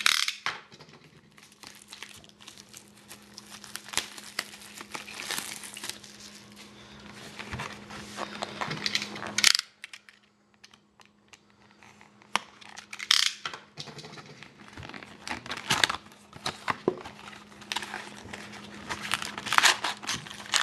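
Plastic wrap and foil card packs crinkling and tearing, with cardboard handling clicks, as a sealed trading card box is unwrapped and opened and its packs taken out. Irregular crackles with sharp louder crinkles now and then and a brief lull about halfway.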